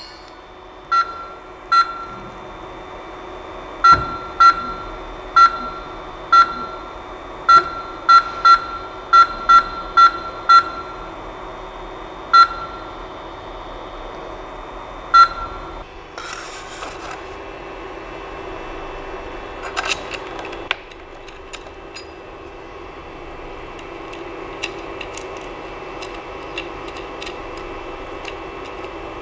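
Creality CP-01's control screen beeping at each button tap, about fifteen short identical beeps at irregular intervals, as the machine is set up for CNC engraving and its Z height is adjusted. Under them runs a steady hum; after the beeps come a brief rustle and a few light clicks.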